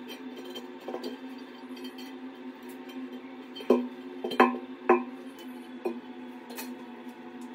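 Hard ceramic clinks of a porcelain toilet cistern lid being handled against the tank: three sharp knocks in quick succession about halfway through, then one more about a second later.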